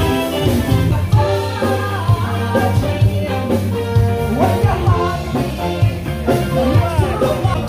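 Live band playing rock music with singing and a steady drum beat.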